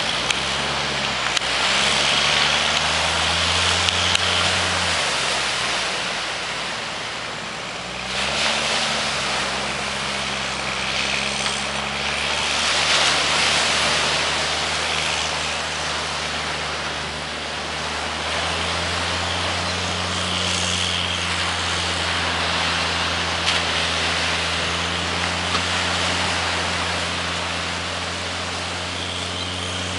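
Tractor engine running under load as it hauls a boat on its trailer out of the surf. Its revs shift several times and then settle into a steady drone, over wind and breaking surf.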